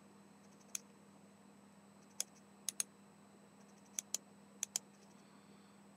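Computer mouse buttons clicking: about eight sharp clicks, several in quick pairs, as a link is right-clicked and a menu option chosen.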